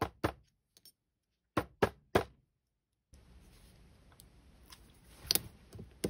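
Chasing hammer tapping a copper clasp against a steel bench block, closing the bent end snug: two sharp taps at the start and three more about a second and a half in. Then a faint hiss with one click.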